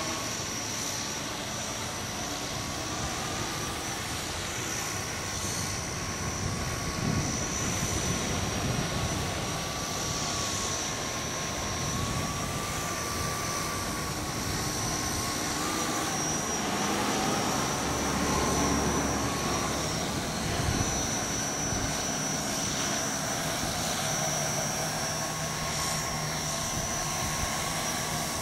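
An RC tricopter's three motors and propellers whining steadily in flight, the pitch wavering a little as it manoeuvres. Wind rumbles on the microphone underneath.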